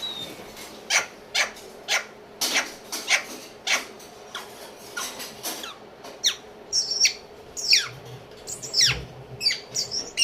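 Pet parrot calling in a quick series of short, sharp squawks and chirps, one or two a second. From about six seconds in the calls become high whistled notes that sweep sharply downward.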